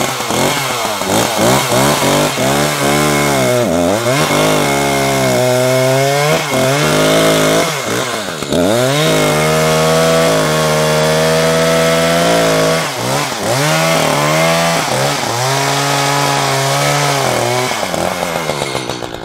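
Gas chainsaw running at high revs while cutting through a protruding stump on a log. The engine pitch drops and climbs again several times as the throttle is let off and opened up, and it holds steady at full speed for a few seconds in the middle. The revs fall away near the end.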